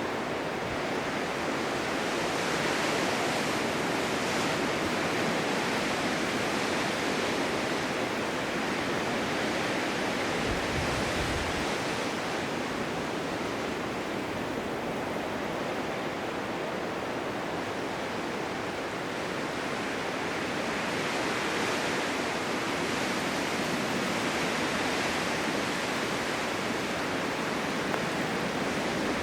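Blizzard wind: a steady rushing hiss that slowly swells and eases.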